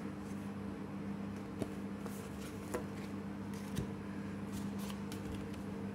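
Pokémon trading cards being handled and laid down on a playmat: soft paper rustles and three light taps, over a steady low hum.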